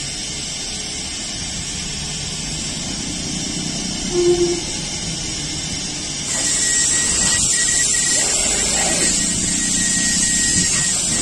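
Engine of a large Komatsu tire-handler forklift running as it works a giant mining tire; about six seconds in the noise grows louder and a steady high whine joins.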